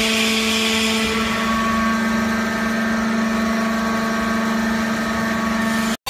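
Vertical hydraulic baler's power unit, its electric motor and hydraulic pump running with a steady hum; one higher tone drops out about a second in.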